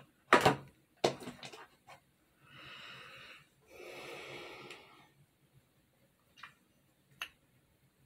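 Rustling and knocking of small items being handled. Then a person breathes out twice, long and breathy, about a second each, followed by two faint clicks near the end.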